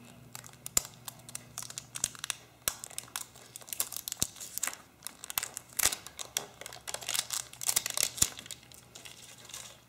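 Wrapper on a plastic surprise egg crinkling and tearing in irregular bursts as a child's fingers pick and peel it off.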